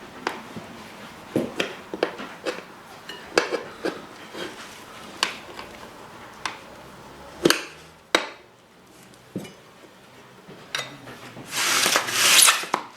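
Tyre levers clinking and knocking against a dirt bike's wheel rim while a new front tyre is levered onto it: scattered sharp metallic knocks, irregular and of varying loudness, then a longer harsh scraping rasp near the end.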